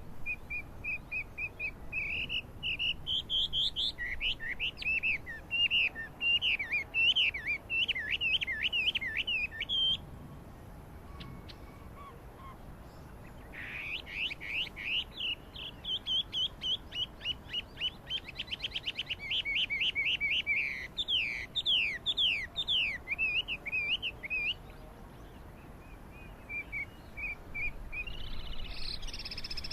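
Chinese hwamei singing a loud, varied song of quickly repeated whistled notes and rising and falling phrases. The song comes in two long bouts that break off about ten seconds in and again about twenty-five seconds in, with a few short notes near the end.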